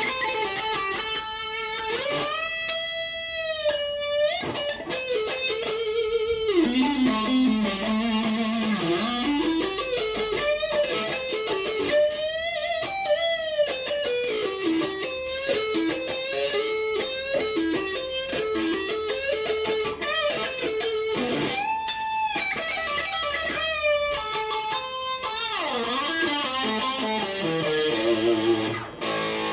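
Gibson electric guitar played through an amplifier: single-note lead lines with bent notes, wide vibrato and long sustain, ending in a quick descending run.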